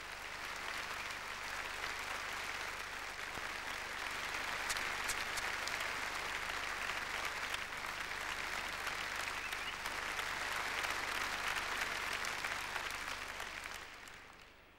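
Large audience applauding steadily in a hall, dying away during the last second or so.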